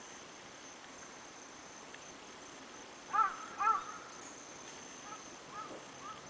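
Steady high-pitched drone of insects, with two short, loud, arched calls about three seconds in, half a second apart, and a few fainter chirps after them.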